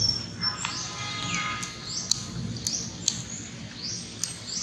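Small birds chirping: short, high calls that repeat every second or so, with a few sharp clicks between them.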